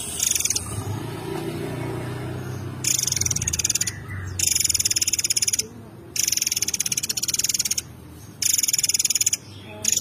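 A caged murai air mancur songbird singing rapid, high-pitched rattling trills, four bursts of about a second each with short gaps, starting about three seconds in. A low rumble comes before the first trill.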